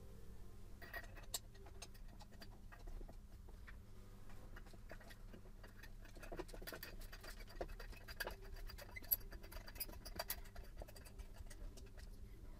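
Light, irregular clicks and scrapes of plastic and metal parts being handled at a car headlight's bulb opening, as the H4 adapter and retaining nut of a bi-xenon projector retrofit are fitted by hand.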